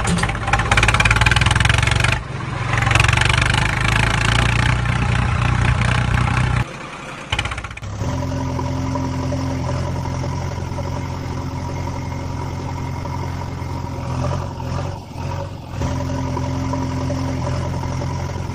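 Engine sound effect of a heavy vehicle running steadily, louder and rougher for the first seven seconds, then after a brief drop a smoother, steady engine.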